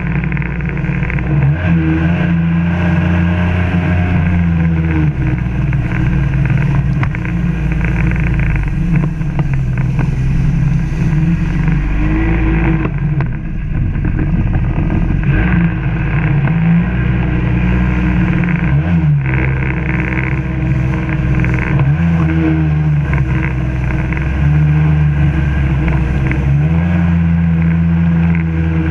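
1996 Sea-Doo GSX's Rotax 787 two-stroke twin running hard under way, its pitch rising and falling several times as the throttle is eased and opened again.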